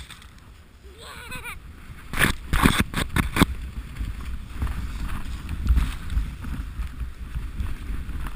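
Sled sliding down a snowy luge run, a steady low rumble and rushing noise of the runners on the snow. A brief high voice about a second in, then a flurry of sharp knocks and bumps between about two and three and a half seconds in.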